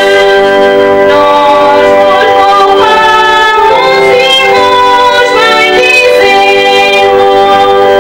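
Music: a woman singing a slow song with long held notes over instrumental accompaniment.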